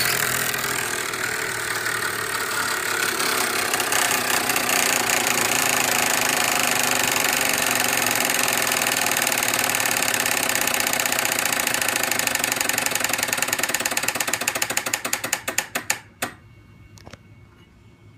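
Home-built reed-switch-and-relay magnet wheel motor running, its field magnets pulsed on and off fast enough to hum as a steady buzzing chatter. Near the end the pulses slow into separate clicks, coming further apart, and stop about 16 s in.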